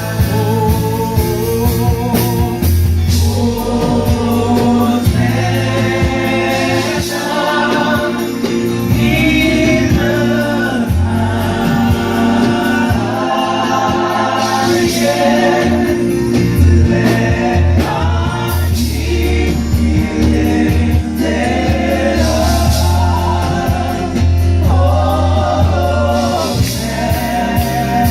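Live gospel worship music: a group of voices singing over bass, drums and guitar.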